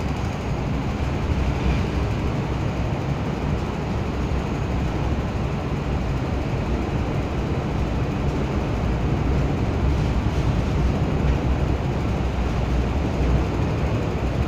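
Steady low rumble of an MTR M-Train electric multiple unit moving along an underground platform, heard through the platform screen doors.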